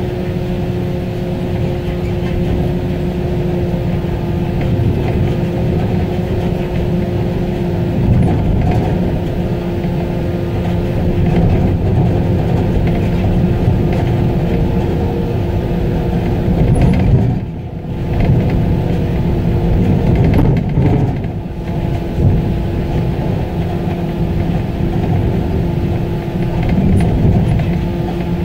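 Tractor-drawn aerial ladder truck under way, heard from inside its rear tiller cab: a steady low rumble of the running gear and road with a steady hum over it. The noise drops briefly twice past the middle.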